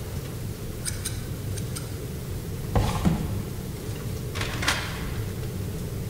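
Library room ambience: a steady low hum, with a few light clicks about a second in, a dull thump about halfway through, and a short rustle shortly before the end.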